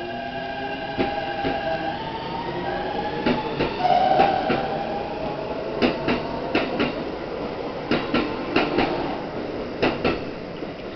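Keikyu 1000-series electric train pulling away: its traction motors whine in stacked tones that climb in pitch in steps as it speeds up. From about the middle on, the wheels click over rail joints, often in quick pairs.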